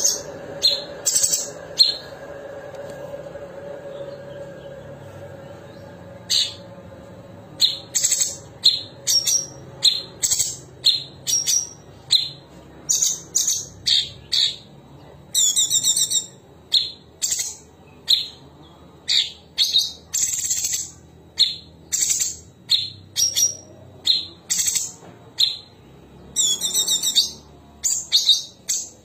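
Cucak cungkok singing: loud, sharp, clipped high notes fired off about twice a second in long runs, broken by a pause of a few seconds early on and by a couple of rapid rippling trills.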